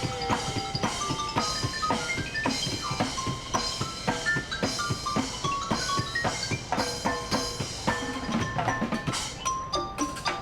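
Live percussion band playing a fast instrumental on instruments built from reused objects: rapid drum and metal strikes under quick runs of bright pitched mallet notes.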